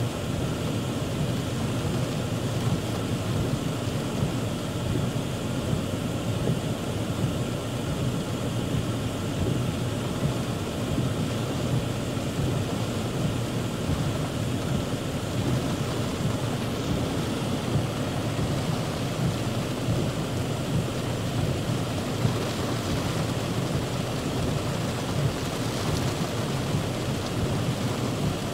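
Heavy rain pouring steadily, a dense, even rush of noise with no break.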